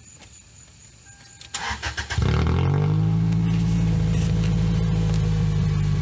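Toyota Celica four-cylinder engine with its muffler removed, cranking briefly and catching about two seconds in. It flares for a moment, then settles into a loud, steady idle.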